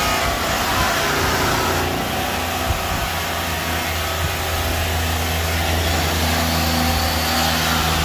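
Machinery running steadily: a low hum under a loud hiss, cut off suddenly at the very end.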